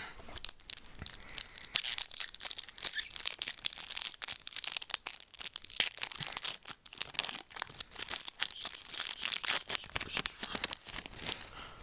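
Foil Pokémon card booster pack wrapper being torn open and crinkled by hand, a dense crackling with a brief lull a little past the middle.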